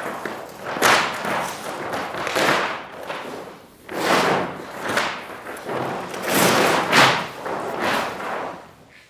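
Large sheets of paper being handled, crumpled and swung about, in a string of loud rustling swishes and crackles roughly a second apart. The rustling stops abruptly just before the end.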